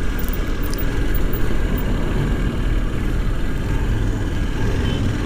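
Motorcycle engine running steadily under a constant rush of road noise.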